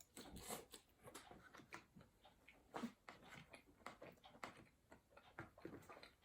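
Near silence with faint, scattered mouth clicks from someone quietly chewing food.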